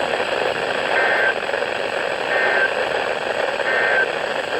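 Heavy static hiss from a weak NOAA Weather Radio signal, with three short two-tone digital data bursts (EAS SAME code) coming through it about a second and a half apart.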